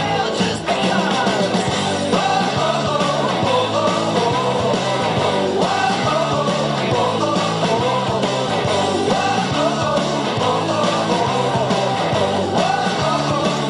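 Rock song with singing over a steady bass line, playing continuously.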